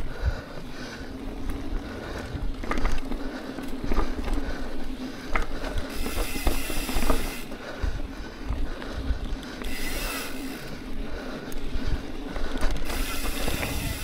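Mountain bike on a dirt trail: the rear hub's freewheel ratchet clicks while coasting, and the bike rattles over bumps. A low rumble runs under it, and a hiss rises in several short stretches.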